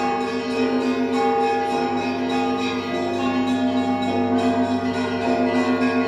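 Russian Orthodox church bells of the Lavra's bell tower ringing together: a quick, even run of strokes on smaller bells over larger bells that keep ringing on.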